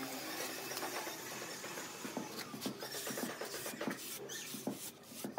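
Hand work on wet cement mortar: a trowel scraping and a tile being handled and set against the render, with scattered light knocks. A string of short, pitched squeaks sounds between about two and four and a half seconds in.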